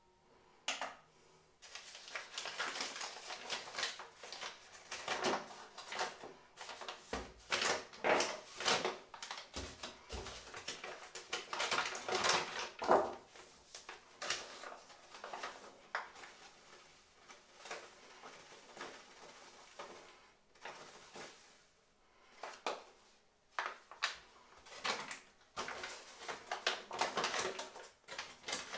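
Paper flour bags rustling and crinkling in irregular bursts as they are handled and flour is shaken out into a stainless steel mixing bowl.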